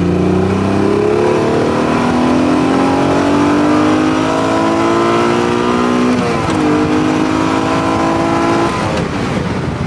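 Modified 3.0 L Alfa Romeo GTV6 V6 accelerating hard, revs climbing steadily. About six seconds in the pitch drops at an upshift and climbs again, then falls away near the end as the throttle is lifted.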